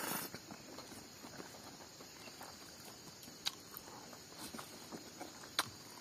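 Close-up eating sounds: a person chewing a hand-fed mouthful of rice and smoked pork, with a burst of mouth noise as the food goes in at the start and a few sharp smacks later.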